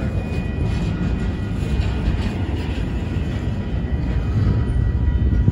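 Long freight train's cars rolling past a level crossing: a steady, continuous rumble of steel wheels on rail.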